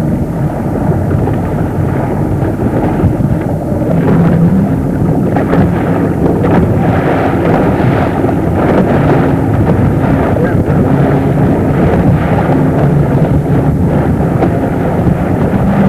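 Wind buffeting a camcorder microphone in a steady, loud rumble, over the low hum of a motorboat engine running.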